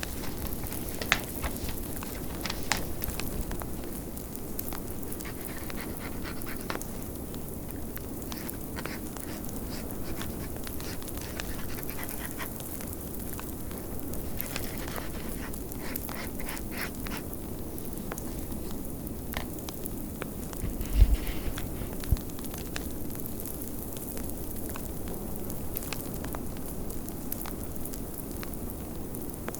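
Fireplace crackling with scattered sharp pops over a steady howling blizzard wind. A single dull low thump about two-thirds of the way through.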